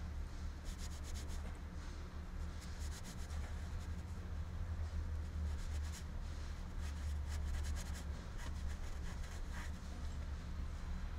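Fingers rubbing carpet-style headliner fabric as its edge is tucked and pushed into place along a seam: short spells of scratchy rubbing that come and go, over a steady low hum.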